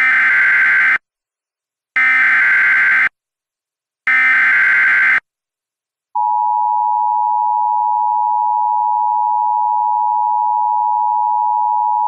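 Emergency Alert System tones: three one-second bursts of SAME header data, the digital squawk that encodes the alert, about a second apart, then the two-tone EAS attention signal (853 and 960 Hz) starts about six seconds in and holds steady.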